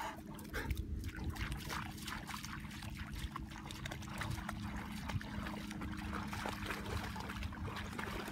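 St. Bernard wading through shallow water, its legs splashing with each step in a run of short, irregular splashes.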